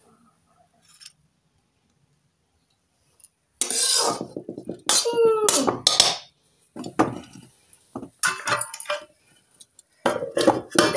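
Steel spatula scraping and clanking against a metal kadai (wok) as cauliflower curry is stirred and scooped. The first few seconds are quiet, then come several scraping strokes, one with a squealing, pitched scrape.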